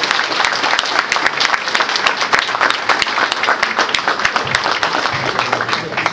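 Audience applauding with dense hand clapping, which thins out near the end.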